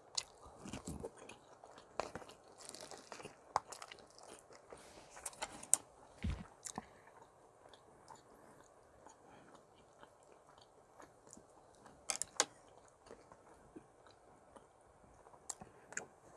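A man chewing mouthfuls of kimchi stew and rice, with scattered sharp clicks of a wooden spoon and chopsticks against a metal pot and plastic container.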